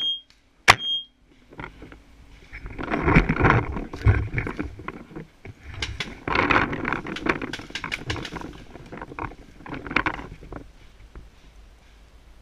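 A paintball marker fires a shot in the first second, a sharp crack with a short ringing note. This is followed by several seconds of rustling and knocking as the player moves through woodland undergrowth with gear rattling.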